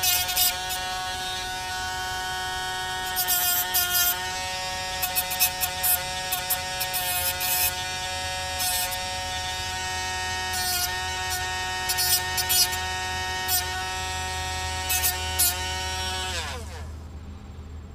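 Cordless battery-powered rotary tool with a cut-off wheel running at a steady whine, rasping in short spells as the wheel grinds the protective coating off the end of a wire. It is switched off about sixteen seconds in, its pitch falling as it spins down.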